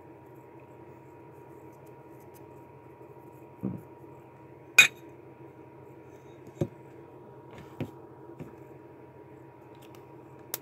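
A ceramic tile and markers being handled on a tabletop: a handful of sharp clicks and knocks, the loudest about five seconds in, over a faint steady hum.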